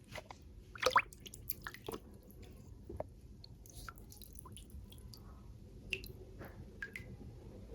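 Water dripping and wet squishing as a plastic bag of coloured water is handled and opened, with scattered small clicks and crinkles of plastic, the loudest about a second in.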